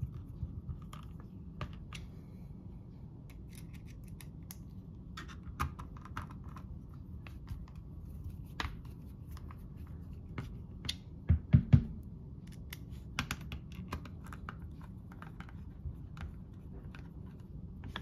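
Hand screwdriver driving small screws back into the cover plate of an Emtek mortise lock case: scattered light clicks and scrapes of the screwdriver tip and screws on the metal, with a few louder knocks about two thirds of the way in.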